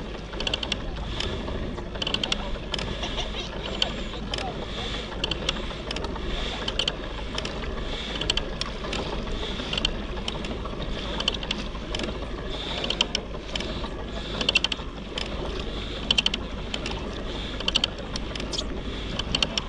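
Small mechanism clicking and ticking in a quick repeating rhythm, a cluster of clicks roughly every three-quarters of a second, over a steady low rumble.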